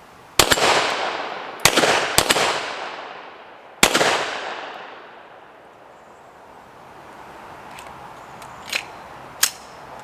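Glock 17 9mm pistol firing four shots at an uneven pace over about three and a half seconds, each shot trailing off in a long echo. Two much lighter clicks follow near the end.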